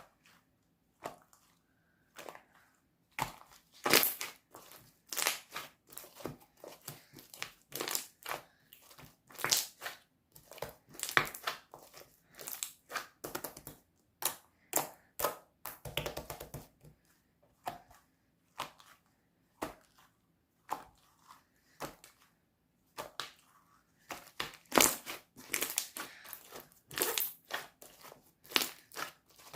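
Slime being squished and pressed by hand, giving irregular bursts of sharp crackling and popping clicks, quieter for a few seconds near the start and again around the middle.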